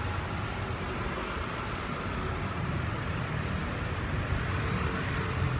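Steady city road traffic: the low rumble and hiss of passing vehicles, with no single vehicle standing out.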